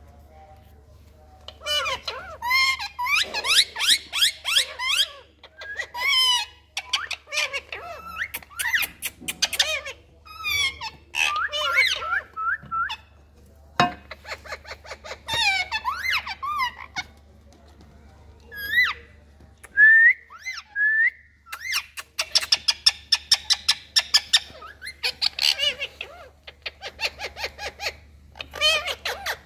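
Pet Indian parakeets chattering, squawking and whistling to each other in bursts of short calls that quickly rise and fall in pitch, with a few brief pauses.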